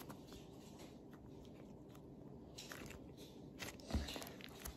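Faint crackling and squishing of cloud slime being kneaded and pressed flat on a tabletop by hand, with scattered small clicks and a dull thump about four seconds in.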